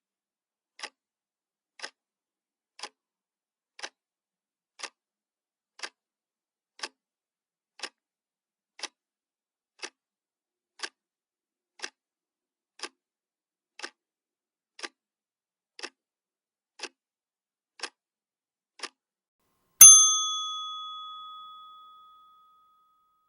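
Clock ticking sound effect, one short tick each second, counting down a timer. Near the end a single bell strike rings out loudest of all and fades away over about two seconds, marking the end of the countdown.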